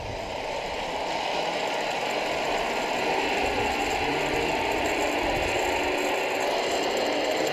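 Zipline trolley wheels running along the steel cable as a rider speeds off down the line: a steady mechanical whir that builds over the first couple of seconds and then holds.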